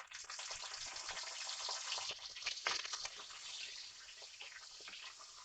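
Green chillies sizzling and crackling in hot oil with frying garlic and onion in a kadhai. The sizzle is loudest for the first few seconds, then eases to a steadier, quieter fry.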